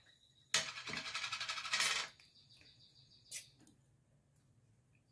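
A glass jar of chili purée being opened and scooped out with a spoon: a rasping scrape lasting about a second and a half, then a single short tap a little later.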